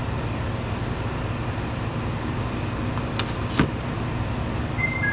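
Diesel railcar engine running steadily, heard from inside the cabin. Two sharp clicks come a little past halfway, the second louder. Near the end a high two-note chime begins, the upper note first.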